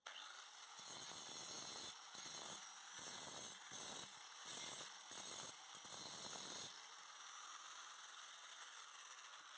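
Angle grinder with a grinding disc dressing down a freshly welded stick-electrode bead. The grinding comes in surges about twice a second for some six seconds, then gives way to a fainter steady hiss.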